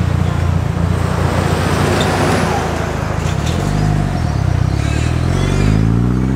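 Mitsubishi Lancer Evolution's turbocharged two-litre four-cylinder engine running at low revs as the car rolls past, then revving up as it accelerates away, its pitch rising from about halfway through.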